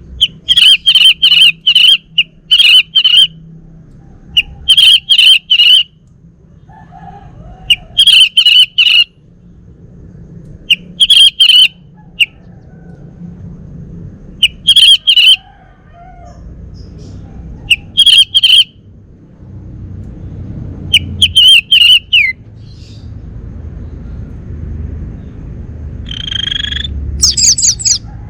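Male orange-headed thrush singing: short loud phrases of rapid repeated notes, one every three seconds or so. Near the end comes a different, longer call that rises higher.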